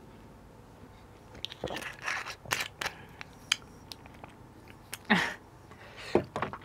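Close-miked swallowing gulps of a drink from a small bottle, then small clicks as the bottle's cap is twisted shut. A short vocal sound comes about five seconds in, with another brief mouth sound near the end.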